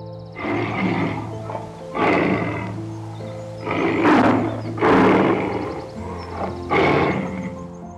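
A large animal calling five times, each call loud and about a second long, over soft background music with steady held notes.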